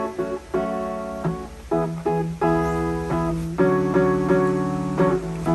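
Background music led by plucked acoustic guitar chords, with new notes struck every half second to a second.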